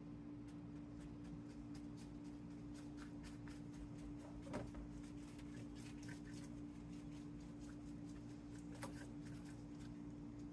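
Faint scratchy strokes and light clicks from buttering and handling thin phyllo pastry sheets, with a slightly louder tap about four and a half seconds in and another near nine seconds. A steady low hum runs underneath.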